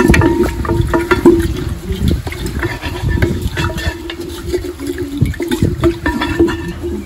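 Water sloshing and splashing in a cooking pot, with irregular knocks of a utensil against the pot.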